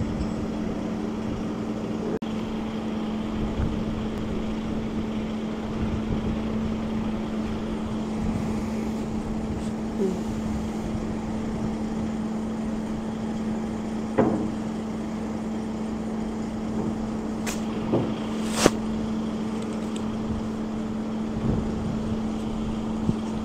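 Heavy diesel machinery running steadily with a constant hum. Three sharp knocks or clanks come in the second half, the last the loudest.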